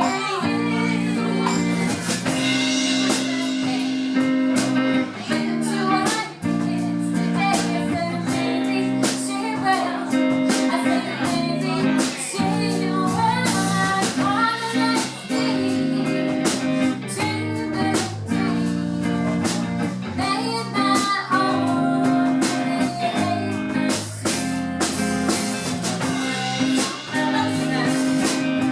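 A band playing a song: guitar, drum kit and a singing voice, with drum hits at an even beat under held guitar and bass notes.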